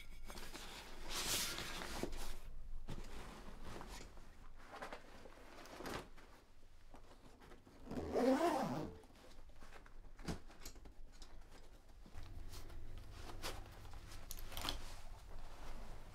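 A rucksack being packed by hand: nylon and fabric rustling and gear being handled, with zips pulled now and then, the loudest and longest about eight seconds in. Near the end a metal belt buckle clinks as a belt is fastened.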